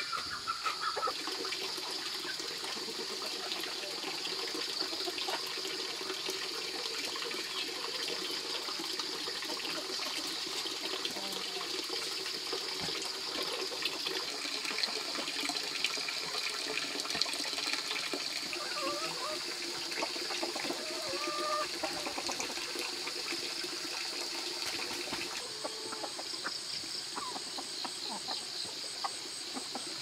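Farmyard sounds: chickens clucking over a steady high hiss, with many small clicks and rustles.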